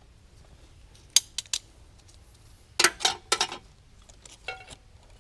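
Small metal clicks and clinks of hand tools and bolt hardware being handled on a backhoe's hydraulic control valve bank while its last tie bolt is taken out. Three quick sharp clicks about a second in, a louder cluster of clatters near the middle, and one softer click later.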